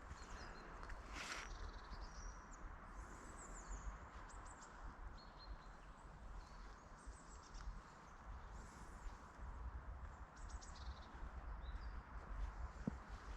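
Small birds chirping and twittering in short high calls over a steady low outdoor rumble, with one brief sharp sound about a second in.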